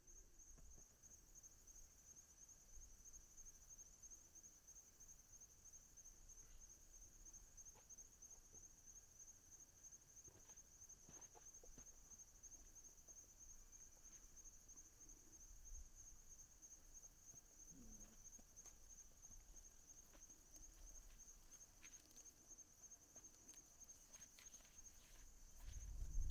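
Faint, steady, high-pitched insect chirring, with a few soft scattered clicks.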